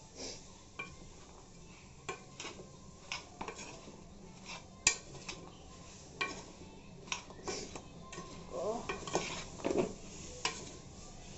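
A metal spoon stirring chopped raw mango pieces with turmeric and salt in a large non-stick pot, with irregular clinks and scrapes against the pot as the pieces are tossed. The clinks come thicker in the second half.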